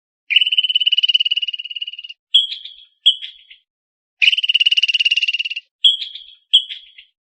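Squirrel alarm chatter: two long, rapid rattling trills, each followed by two short chirps.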